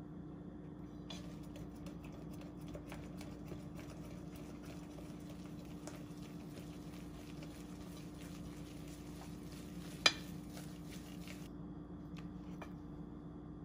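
Silicone whisk stirring thick pancake batter in a glass bowl: a quick run of soft ticks and scrapes that starts about a second in and stops near the end, with one sharp knock about ten seconds in. A steady low hum runs underneath.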